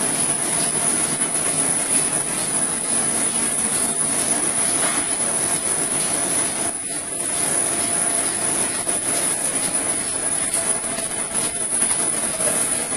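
Folding device for BOPP/OPP plastic film running, a steady mechanical whir with a thin, steady high whine over it.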